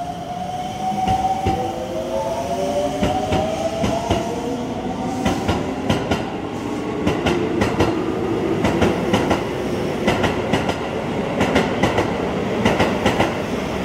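An electric commuter train pulls out of the station. The traction motors' whine rises in pitch as it picks up speed, then the wheels clack over the rail joints in quicker and quicker groups as the cars pass.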